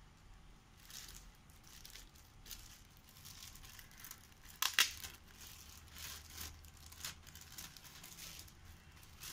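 Clear plastic bag crinkling as a replacement laptop keyboard is handled and slid out of it: a run of rustles, the loudest about halfway through.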